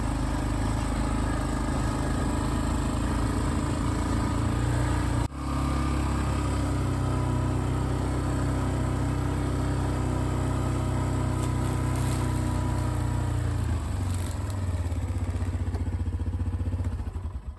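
ATV engine running steadily under way, a low even drone that breaks off and resumes about five seconds in, shifts again near the end and then fades.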